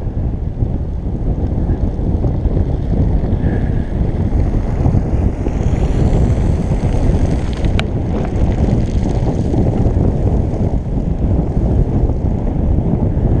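Wind buffeting the microphone of a camera carried on a moving bicycle: a loud, steady low rumble. A single short sharp click about eight seconds in.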